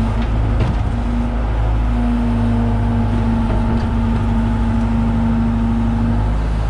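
John Deere 190E excavator's diesel engine running steadily with a constant hum, the tone briefly dipping a few times.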